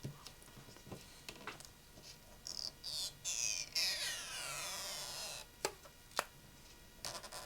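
Stretch-release adhesive pull tab being drawn out from under the iPhone 6 Plus battery. It makes a high squeal that slides down in pitch over a couple of seconds, and two sharp clicks follow.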